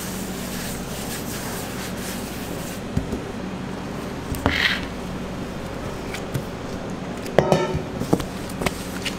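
A stainless steel mixing bowl knocking and scraping on a stainless steel work table, over a steady background hum. About seven seconds in, the bowl gives its loudest knock with a brief metallic ring, and a few softer knocks follow.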